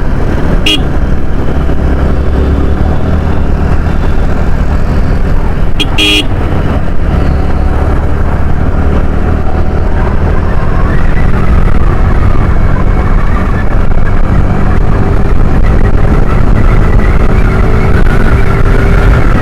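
Yamaha R15 single-cylinder motorcycle engine running under the rider in traffic, with a heavy steady rumble of road noise, and two short vehicle horn toots about a second in and around six seconds in. From about halfway, the engine's pitch climbs steadily as the bike speeds up.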